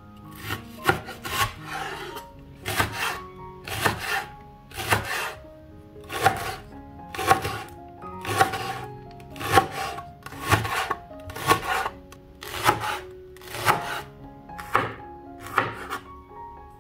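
Chef's knife slicing leeks into rings on a wooden cutting board: a crisp cut, often two in quick succession, about once a second, each ending in a knock of the blade on the wood. Background music plays underneath.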